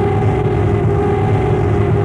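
Loud, steady machine drone: a low rumble with a held hum above it, unchanging throughout.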